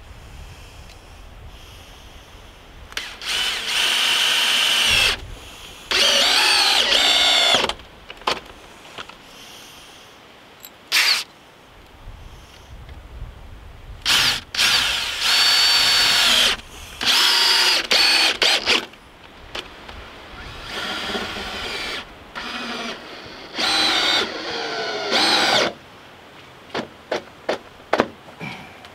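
DeWalt cordless drill driving screws through a steel bracket into a wooden beam. It runs in about seven spurts of a second or two, its whine sagging in pitch as a screw bites, then gives a few quick trigger blips near the end.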